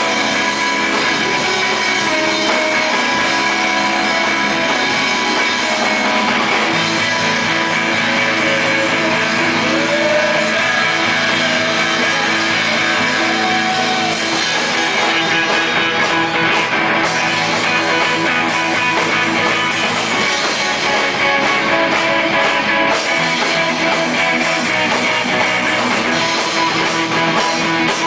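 A rock band playing live, loud and without a break.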